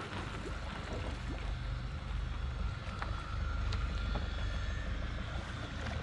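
Wind buffeting the microphone: a steady low rumble, with a few faint ticks over it.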